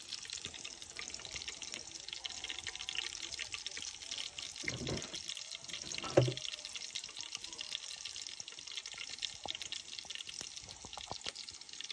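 Chopped greens frying in hot oil in a metal bowl over a wood fire: a steady sizzle with fine crackles. Two brief low bumps come a little under five seconds and about six seconds in.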